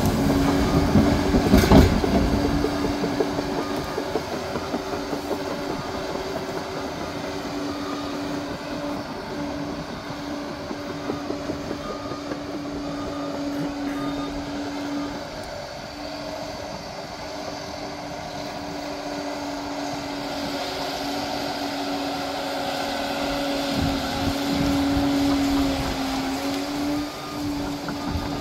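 Liebherr PR 746 crawler dozer working: its diesel engine drones steadily under load while the steel tracks clank and rattle, with a loud clatter in the first two seconds.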